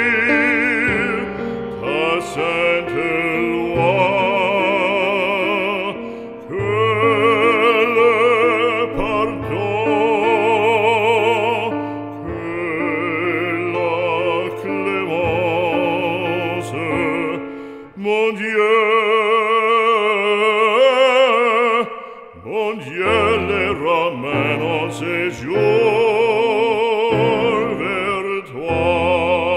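Background music: operatic singing with a wide vibrato on long held notes, over an instrumental accompaniment.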